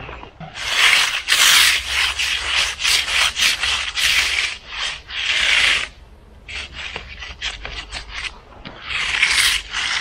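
A hand finishing tool scraped in repeated strokes over fresh, wet concrete at the slab's edge. First come long strokes, then a run of short quick ones about two-thirds through, and one more long stroke near the end.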